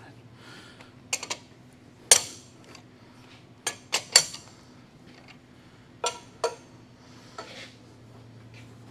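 Steel chuck key clinking and clanking in the jaw sockets of a large four-jaw lathe chuck as the jaws are snugged up lightly by hand on the workpiece. A handful of separate sharp metallic clinks, the loudest about two seconds in, over a faint low steady hum.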